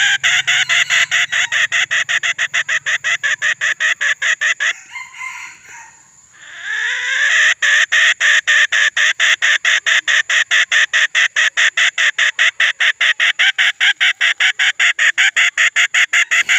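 Red junglefowl rooster crowing. There are two long calls, each rising at the start and chopped into rapid even pulses of about five a second, with a short break about five seconds in.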